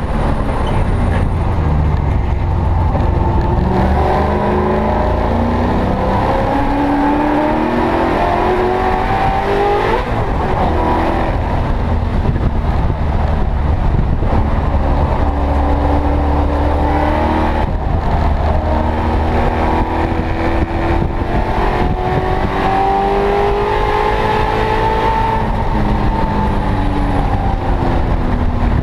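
Ford Racing Aluminator XS V8, a Coyote-based engine, heard from inside a Mustang race car's cockpit, running at high revs under hard acceleration. Its pitch climbs again and again between gear changes and lifts.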